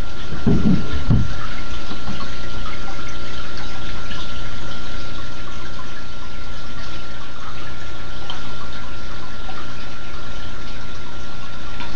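Aquarium filtration running: a steady wash of bubbling, splashing water with a low hum and a thin steady whine. A brief low rumble comes about half a second in.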